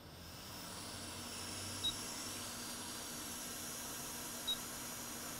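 Hot air rework station blowing a steady hiss of air that swells in over the first second, heating a shorted capacitor to desolder it from a logic board. Two short high beeps come about two seconds and four and a half seconds in.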